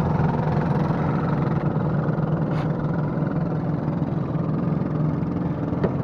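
An engine idling steadily, a constant low hum, with a light click near the end.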